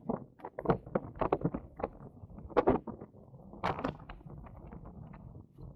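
Irregular knocks and rattles over a low rumble from an e-bike riding over an uneven surface, with no steady beat.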